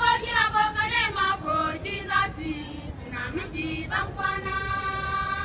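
A group of girls singing together, the tune moving quickly at first and then settling on one long held note about four seconds in.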